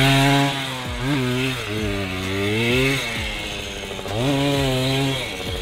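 Suzuki JR80 two-stroke mini dirt bike engine revving up and dropping back several times as it is ridden. It is loudest at first and grows fainter after about half a second as the bike moves away.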